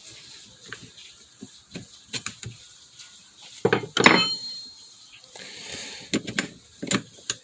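Handling clicks and knocks from a rotary hammer and its drill bits, with one sharp metallic clink that rings briefly about four seconds in.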